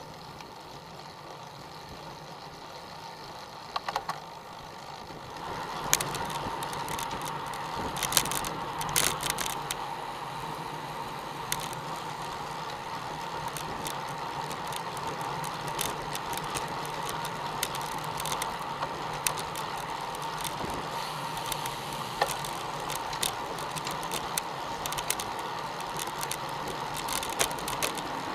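Road bicycle rolling at speed: steady tyre and road noise with frequent sharp rattles and clicks from the bike. The noise gets louder about five seconds in, with a faint steady whine.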